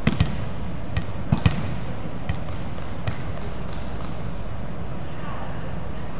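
Volleyballs being struck and bouncing on a wooden gym floor: a scatter of sharp thuds, most of them in the first three seconds, over steady background noise of the hall.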